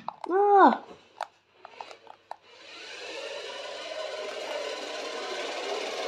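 Toy remote-control car's small electric drive motor and gears whirring steadily as it drives across a hard floor, starting about two and a half seconds in and growing a little louder as it comes closer. Before it there is a short rising-and-falling tone and a few light clicks.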